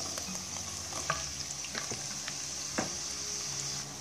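Finely chopped onions hitting hot oil in a kadhai and frying with a steady sizzle, with scattered light taps as pieces slide off a wooden chopping board into the pan.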